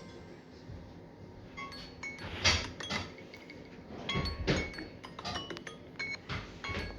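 Samsung Galaxy A71 ringtone playing: a quick, irregular run of short clinking, chime-like struck notes, starting about a second and a half in, the loudest about two and a half seconds in.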